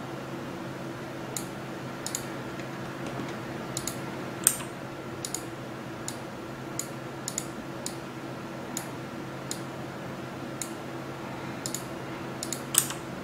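Scattered clicks of a computer mouse and keyboard keys, roughly one a second, with two louder clicks about four seconds in and near the end, over a faint steady hum.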